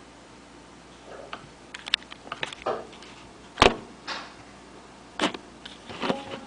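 Scattered clicks and knocks, the loudest a single sharp knock about three and a half seconds in.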